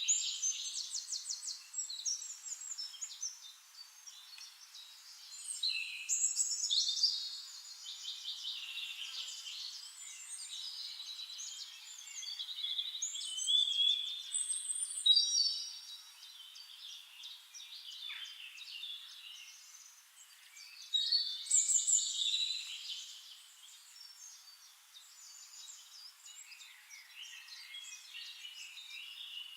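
Several songbirds singing at once: overlapping rapid trills, chirps and high whistled phrases, swelling in louder bursts every several seconds.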